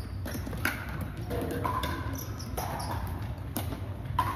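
Pickleball rally: about five sharp pops of paddles striking the hollow plastic ball, roughly one a second, each with a short ring.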